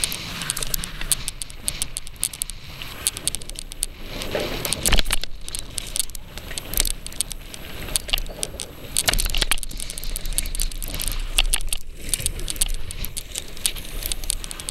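Mountain bike rattling and clattering over a rough dirt trail, many sharp irregular clicks, with bursts of wind rumbling on the microphone.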